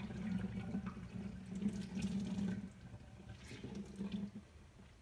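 Water running from a kitchen tap as a cloth is soaked under it, easing off about two and a half seconds in.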